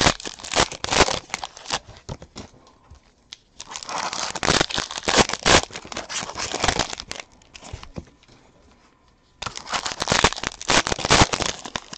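Trading-card pack wrappers being torn open and crumpled, in three stretches of crinkling and tearing with short pauses between.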